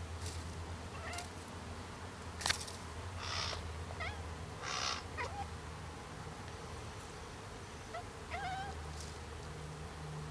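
Burmilla cat chirping and trilling at a bird: several short calls that rise and fall in pitch, the longest, wavering one near the end. Two short hissy noises and a sharp click come in between, over a low steady hum.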